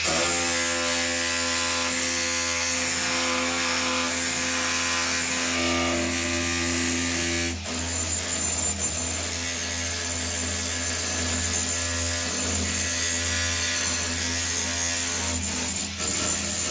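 Battery-powered Hilti rotary hammer chiselling a cable slot into a masonry wall with a flat chisel: a steady, fast hammering with one short dip about seven and a half seconds in.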